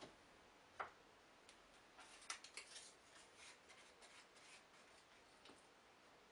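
Quiet handling at a wooden workbench: a single knock about a second in as a plastic glue bottle is set down, then a run of small clicks and rustles as thin glued wood veneer strips are stacked and squared up by hand, fading to occasional light taps.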